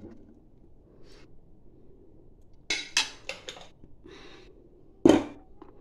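Metal serving spatula scraping and clinking against a metal cooking pot while scooping out rice: a quick cluster of short clinks about three seconds in, then one loud clank near the end.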